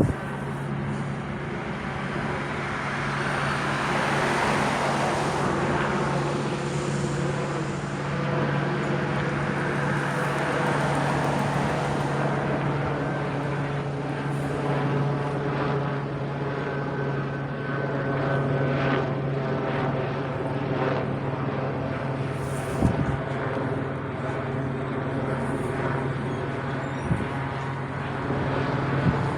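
Helicopter overhead: a steady engine and rotor drone that holds the whole time, swelling slightly about four seconds in.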